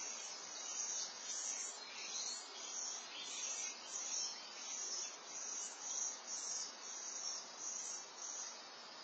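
A high, steady insect trill with uneven louder chirps, stopping shortly before the end, over faint outdoor hiss.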